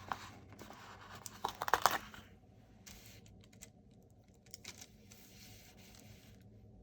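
Crinkling and rustling of sticker sheets being handled, with crackly clicks that are loudest in the first two seconds, then a few faint ticks.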